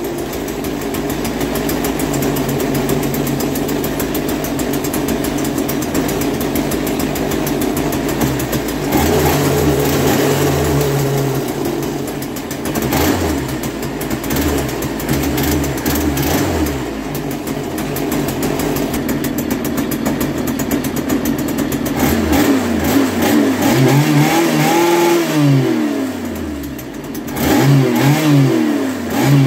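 Small two-stroke Stihl string-trimmer engine running, its speed swinging up and down as the throttle is blipped, with several quick revs near the end.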